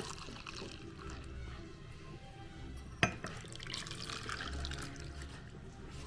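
Hot milk trickling and splashing in a mug, with one sharp clink about three seconds in.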